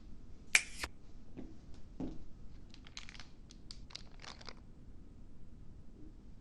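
Groceries being handled and put into a kitchen cabinet: a sharp knock about half a second in, then a run of light clicks and crinkling packaging.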